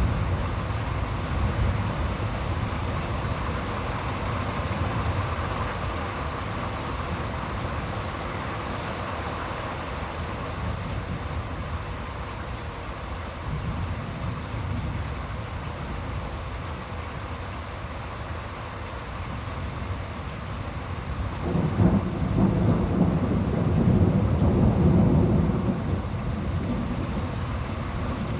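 Steady rain falling during a thunderstorm, with thunder rumbling low underneath. About three-quarters of the way through, a louder roll of thunder swells for several seconds and then fades.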